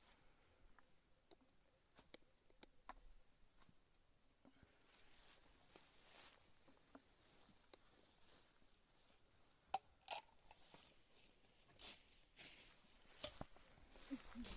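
Steady high-pitched chorus of insects, with a few rustling footsteps through grass in the second half.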